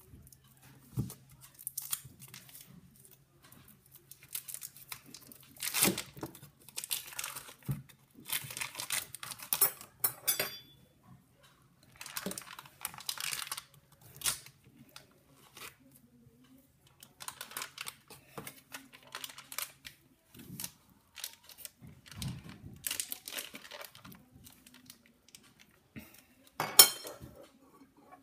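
Foil wrapper of a Philadelphia cream cheese brick crinkling and tearing in irregular bursts as it is peeled off by hand, with a few light knocks in between.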